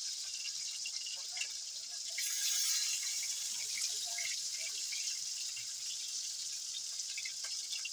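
Sliced onion sizzling in hot mustard oil in a kadhai on a gas stove: a steady frying hiss that swells louder for about a second, about two seconds in.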